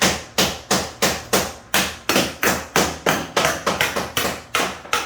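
A hammer striking steadily, about three sharp blows a second, during tile repair work.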